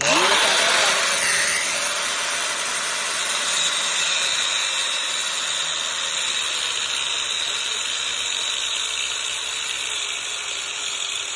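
Angle grinder cutting through a steel car coil spring, starting abruptly and running steadily under load, its motor pitch sagging slightly as the disc bites. The cut shortens the spring to lower the car.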